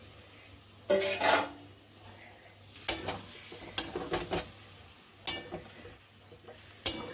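A long steel spatula stirring and scraping thick banana-flower and potato curry in a steel kadai. There are a few sharp metal clinks where the spatula knocks against the pan.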